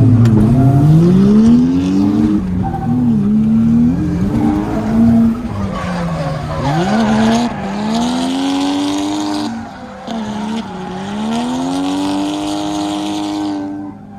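Turbocharged 1JZ-GTE straight-six in a Lexus SC300 revving up and down repeatedly while drifting, with the rear tyres squealing through two long slides in the second half.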